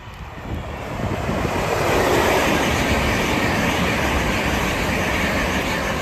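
Class 387 electric multiple unit passing along the platform, its wheel and air noise rising over the first two seconds and then holding steady and loud.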